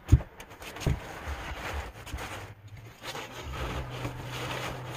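Handling noise as an appliance is picked up and moved: a sharp knock at the start and another about a second in, then rustling and scraping. A low steady hum comes in about halfway through.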